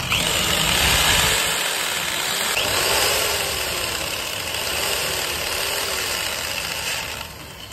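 Corded electric hand drill running while drilling into a hollow skull ornament. It spins up at the start and again about two and a half seconds in, then stops about seven seconds in.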